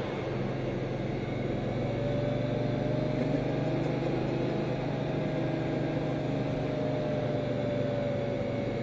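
Steady cabin noise inside a moving Bugatti Veyron: the W16 engine drones at a constant cruise together with road noise, with no revving or gear changes.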